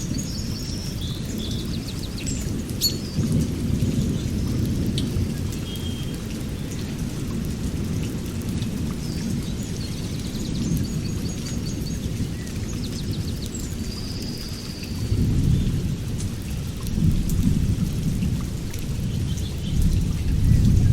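Thunderstorm ambience: a low rolling rumble of thunder over steady rain, swelling about fifteen seconds in and again near the end, with birds chirping and trilling above it.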